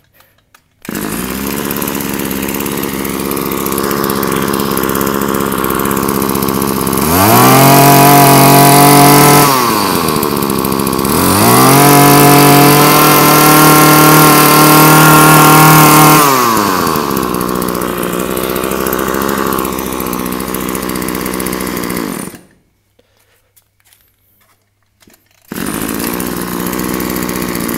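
A Maruyama BC20T 20cc two-stroke brush cutter engine idles, is revved up to high speed twice for a few seconds each, and drops back to idle. It cuts off suddenly about 22 seconds in and is heard running again near the end. It runs strongly, with a fairly loud, sharp exhaust note.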